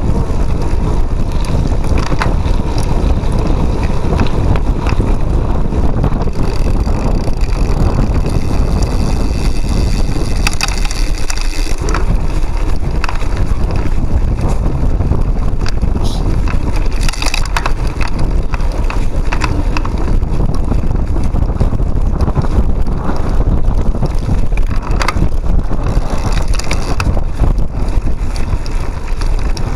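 Cyclocross bike ridden fast over a bumpy grass course: wind rushing over the handlebar-mounted camera's microphone, with the rattle of the bike and camera mount and frequent knocks from the bumps.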